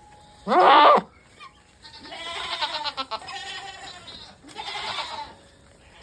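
Nigerian Dwarf goats bleating: a short, loud bleat about half a second in, a longer wavering bleat from about two to four seconds, and a shorter one near five seconds.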